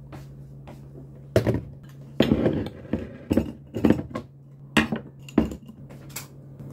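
Knocks and clatter of household objects being handled and set down, among them a desk lamp and its cord: about eight sharp knocks, irregularly spaced, over a steady low hum.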